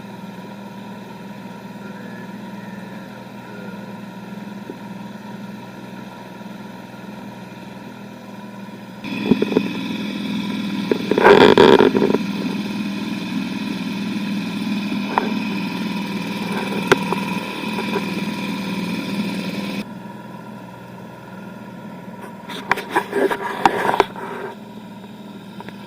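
A 1997 Nissan 3.5 hp outboard motor running steadily on an aluminium canoe. It gets louder and rougher from about nine seconds in until about twenty seconds, with a brief loud burst of noise about eleven seconds in. A few sharp clatters come near the end.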